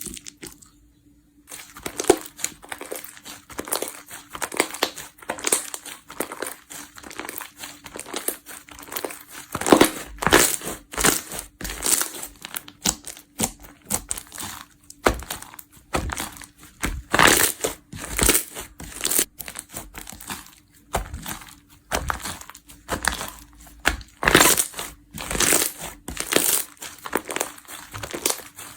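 Slime being squeezed and pressed by hand close to the microphone, making a continuous run of irregular crackling and popping clicks, with some louder pops among them. The crackling starts about a second and a half in.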